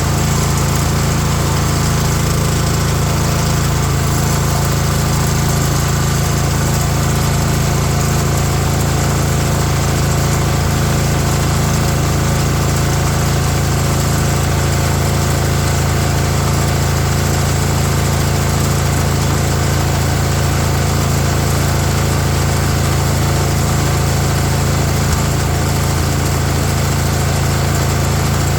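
Small petrol engine of a water blaster running steadily at an even speed on a newly fitted carburettor, unloaded because its water pump is off.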